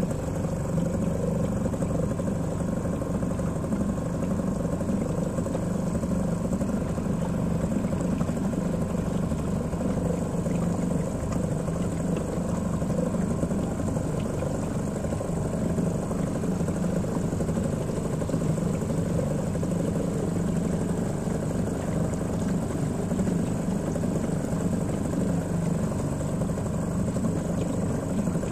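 Small outboard motor on a dinghy running steadily.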